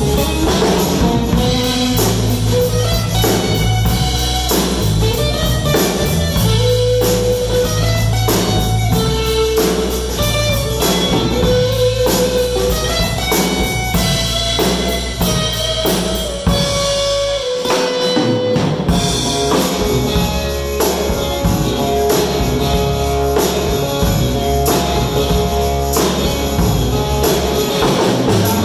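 Live rock band playing an instrumental passage: electric guitars, bass and drum kit. About two-thirds of the way through, the bass and drums drop out for about a second under a held guitar note, then the band comes back in.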